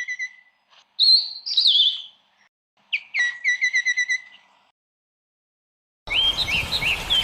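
A songbird singing short whistled phrases with gliding, swooping notes, in three bursts separated by brief pauses. After a gap of silence, a different bird's repeated rising-and-falling calls start abruptly near the end over a steady background hiss.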